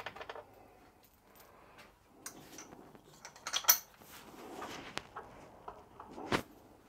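Metal parts clinking and knocking as a dynamo, nuts and washers are handled and fitted to their mounting, with a sharp metallic clack about three and a half seconds in and another knock near the end.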